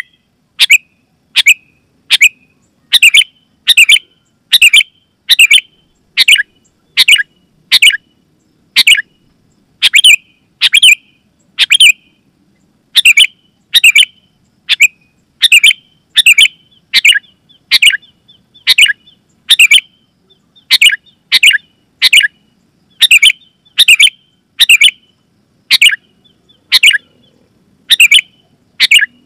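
Sooty-headed bulbul (kutilang) calling loud and clear: short, sharp notes repeated about once a second, with short gaps between them.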